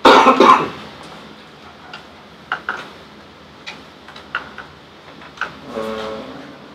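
Typing on a laptop keyboard: scattered single keystrokes, about eight taps spread over a few seconds. A brief burst of voice comes right at the start, and a short voiced sound near the end.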